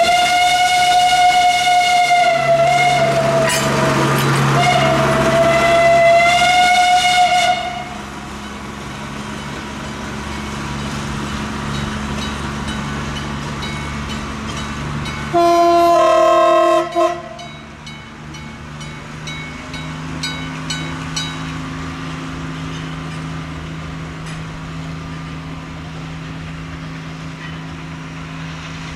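Steam locomotive whistle blowing two long blasts. After a pause, a narrow-gauge Planet diesel locomotive sounds its chime horn once, briefly. The diesel's engine then runs steadily, its note rising about twenty seconds in, with faint ticking from the wheels on the rail joints.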